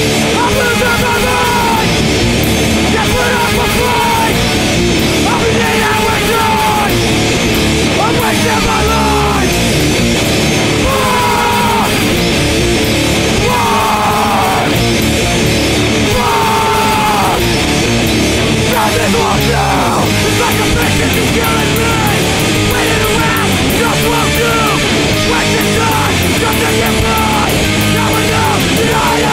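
Loud punk rock song: distorted electric guitars and drums pounding steadily, with shouted vocals over them.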